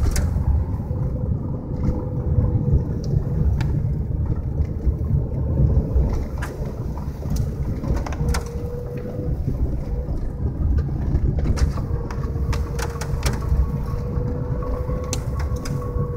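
Vehicle driving on a snow-covered road, heard from inside the cabin: a steady low engine and road rumble with a faint whine that comes and goes. Scattered short clicks and knocks.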